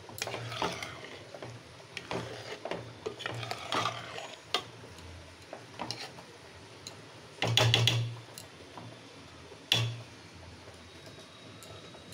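Metal ladle stirring thick khichuri in an aluminium pot, scraping and clinking against the pot's sides. About seven and a half seconds in comes a louder run of knocks on the pot, and there is one more sharp knock near ten seconds.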